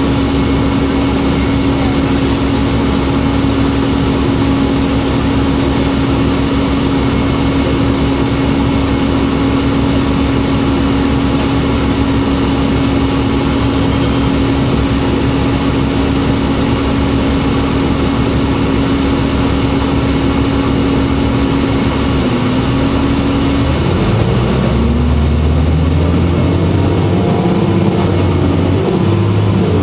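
Diesel bus drivetrain (Cummins ISL engine with Voith automatic transmission) heard from inside the cabin: a steady hum while the bus sits in traffic. About three-quarters of the way through, the engine note rises as the bus pulls away and accelerates.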